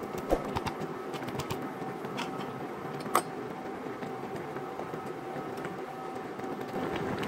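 Stew broth at a rolling boil in a pan, bubbling and popping in a steady crackle, with a sharp tap about three seconds in. Near the end a spatula stirs through the boiling broth.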